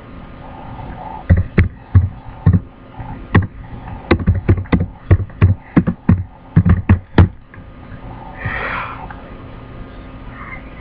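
Computer keyboard typing: about eighteen quick, irregular keystroke clicks in short runs as a command is typed and entered. A short breathy rush of noise follows about a second later.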